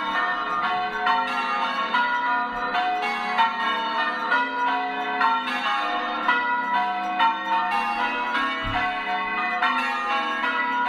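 Church bells being rung in changes: a steady, even run of overlapping bell strikes, about three a second.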